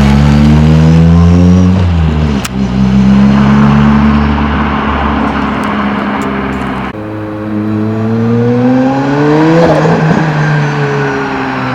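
Ford Escort RS Cosworth's turbocharged four-cylinder engine accelerating hard, its pitch climbing, dropping at a gear change about two and a half seconds in, then pulling up again. Near the end the revs peak and fall away.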